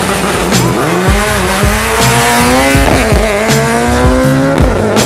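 Mitsubishi Lancer Evolution IX's turbocharged four-cylinder accelerating hard down a drag strip. The engine note climbs in pitch and drops back at each upshift, several times over.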